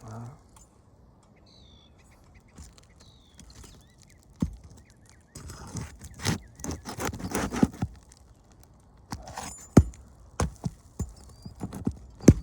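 Sharp knocks and scraping from a roof snake worked under asphalt shingles to pry out the nails, with a busy run of clicks and scrapes in the middle and single hard knocks near the middle and the end.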